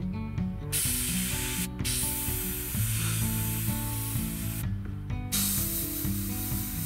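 Gravity-feed airbrush spraying paint: an even hiss in three stretches, broken by a short gap and then a half-second gap, over background music.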